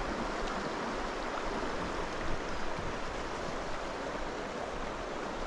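Shallow creek water running over a shale and gravel riffle: a steady rush of water.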